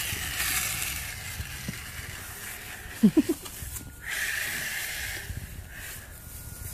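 Radio-controlled monster truck's electric motor whirring in bursts as it drives through long grass. About three seconds in, a short falling vocal sound from a small child is the loudest thing.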